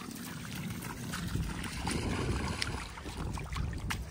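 Shallow river water trickling and splashing, with a steady low rumble of wind on the microphone.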